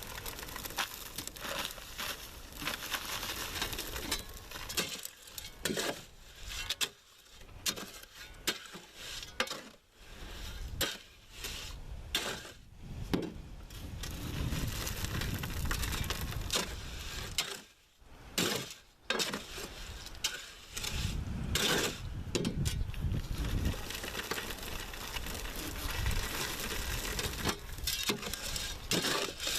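Concrete being mixed by hand: a tool scrapes and churns through wet concrete, with irregular knocks and clatters against the container.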